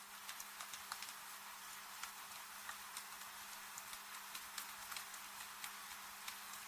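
Wood fire crackling with irregular sharp pops and snaps, over a steady hiss of rain, with a faint steady low hum underneath.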